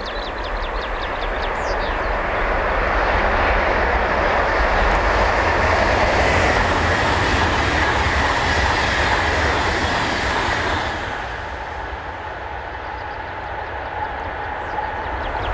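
Sapsan (Siemens Velaro RUS) high-speed electric train passing at speed: a loud rush of wheels and air that builds over the first couple of seconds, holds, then falls away about eleven seconds in. A bird trills briefly near the start and again near the end.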